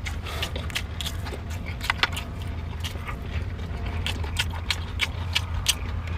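Irregular light clicks and clinks of eating utensils against a metal lunchbox, over a steady low hum.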